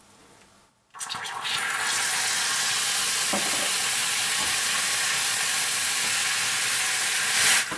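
Hot sugar caramel in a frying pan sizzling and hissing loudly after cold water is added, stirred with a silicone brush. The hiss starts suddenly about a second in, holds steady, and swells briefly before dropping near the end.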